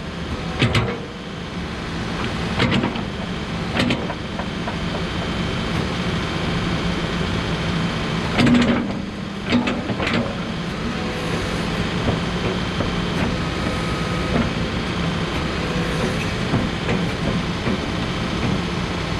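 Case 590 Super N loader backhoe's diesel engine running steadily while the boom and bucket are worked, with several metallic knocks and clanks, the loudest cluster about eight to ten seconds in.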